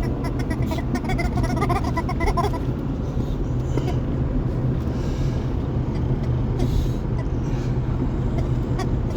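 Rubber chicken squeak toy giving a quick string of faint short squeaks in the first couple of seconds as a bulldog works it, over a steady low rumble.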